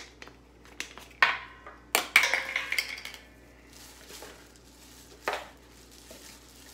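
Kitchen clatter from a seasoning shaker and a plastic mixing bowl while chicken breast is seasoned by hand. A few sharp knocks come about one and two seconds in, the second with a brief ringing, and another near five seconds, with quieter handling and rubbing in between.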